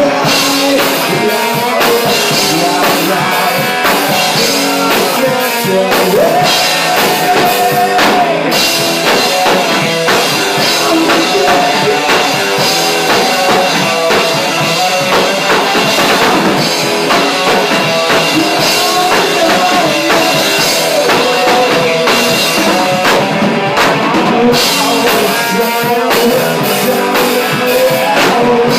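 Loud live rock band playing: electric guitar over a drum kit with cymbals.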